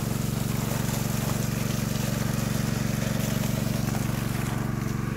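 A small engine-driven water pump runs steadily at an even pitch, with water spraying from its hose onto the soil.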